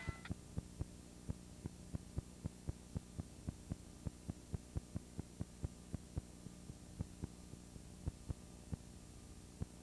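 Faint electrical mains hum with a run of soft, regular clicks, about three a second, as the music fades away at the start.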